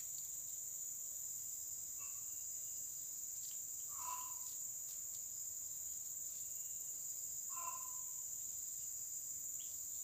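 A steady high-pitched drone of forest insects, with three short, faint calls about two, four and eight seconds in.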